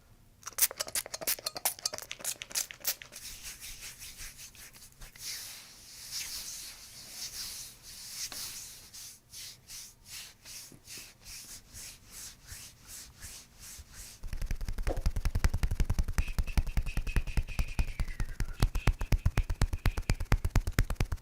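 Rubbing and soft clicks against the body. About two-thirds of the way in, a small motorised tool starts up with a rapid, even pounding and a high whine that holds, then dips: a handheld percussion device working on the body.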